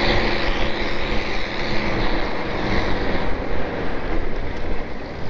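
A vehicle engine running steadily while driving along a snow-covered road, under a continuous rushing noise.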